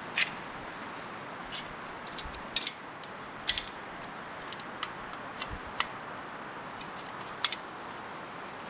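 A folding bucksaw being handled and set up, giving about ten sharp, irregular clicks and light metallic ticks over a steady outdoor hiss.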